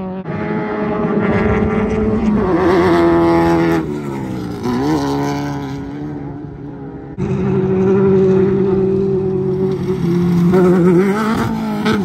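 Off-road race car engines running at high revs as the cars go past. Their pitch sags when the throttle is lifted and climbs again as they get back on it, several times. The sound changes abruptly twice as one car gives way to the next.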